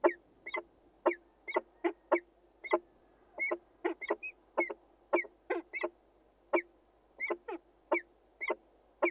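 Peregrine falcon calling in a steady series of short, sharp notes, about two a second, each note dropping in pitch.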